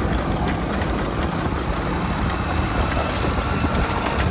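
Motorcycle engine running steadily on the move, mixed with the rush of wind on the microphone.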